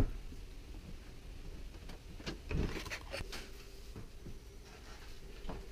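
A last sharp knock on the wooden front door right at the start, then quiet, with faint clunks and a rattle around two to three seconds in as the door is handled and swung open.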